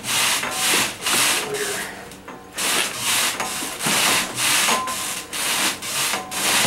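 Rhythmic rasping strokes, about two a second, like a tool or hard object worked back and forth, with a short lull about two seconds in.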